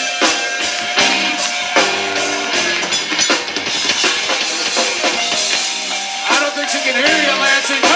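Live band playing through stage amplification: drum kit, electric bass, two electric guitars and keyboard, with the drums prominent.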